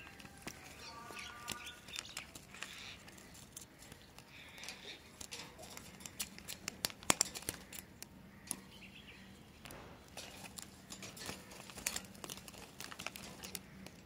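Ring-necked parakeets flapping their wings and scrabbling at a feeding dish and cage wire, making many quick clicks and taps, the loudest around the middle. A few short chirps come in the first two seconds and again a little later.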